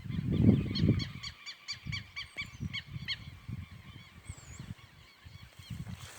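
Southern lapwings (quero-quero) calling: a rapid series of about ten sharp, harsh notes over about two seconds, starting about a second in. A low rumble on the microphone is loudest in the first second.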